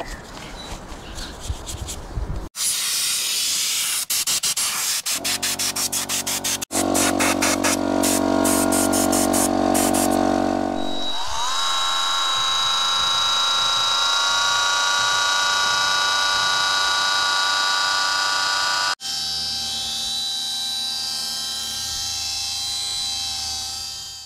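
Small handheld electric rotary detailing tool whirring at a steady speed, with a rising whine as it spins up about eleven seconds in. The sound comes in several abrupt cuts, with scratchy brushing noise in the first couple of seconds, and fades out at the end.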